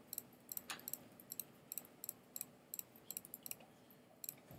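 Computer mouse button clicked repeatedly, faint, irregular clicks about three a second, picking out polygon faces one after another.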